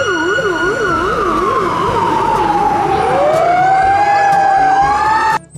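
Fire engine siren: a slow wail that falls and then rises again, with a fast yelp warbling about three times a second over it. It cuts off suddenly near the end.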